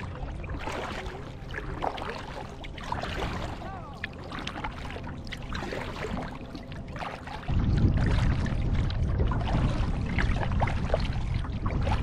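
Double-bladed kayak paddle strokes: blades dipping and pulling through lake water with splashes and drips, and water washing along the hull. About seven and a half seconds in, a louder low rumble sets in under the splashing.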